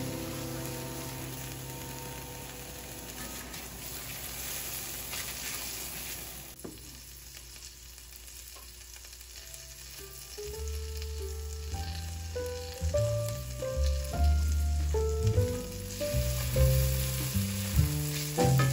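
Sliced onions and capers sizzling in an enameled pan as a spatula stirs them. From about halfway through, background music with a series of held, stepping notes comes in and grows louder over the frying.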